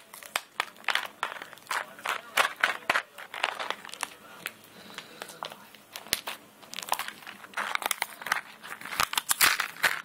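Packaging of a variety pack of hose barb fittings being opened by hand, crinkling and crackling irregularly throughout.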